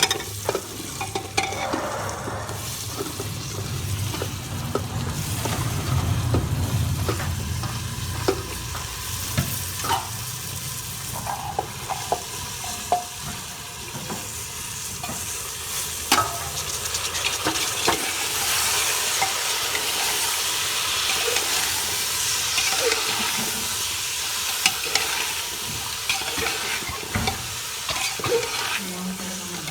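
Chopped vegetables sizzling in hot oil and spices in a pressure cooker as they are stirred, with occasional sharp clicks. A low rumble sounds in the first several seconds, and the sizzle grows louder past the middle.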